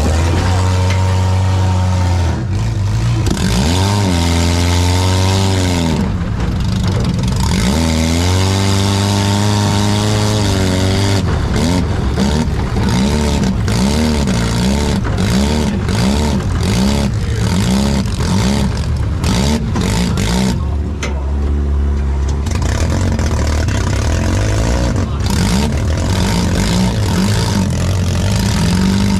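Four-cylinder demolition derby car engines revving up and falling back again and again, with scattered sharp clanks and knocks of cars hitting each other through the middle of the run.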